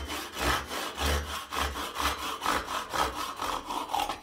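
Fine-toothed hand saw cutting through an old wooden hammer handle flush against the steel head, in steady back-and-forth strokes of about three a second. The sawing stops suddenly at the end as the cut goes through.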